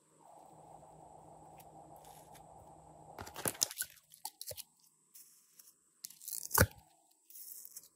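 Slime with foam beads and soft clay being handled and pressed out of a silicone mold: a soft squishing at first, then a run of crunchy crackles and pops about three seconds in, and one louder pop later on.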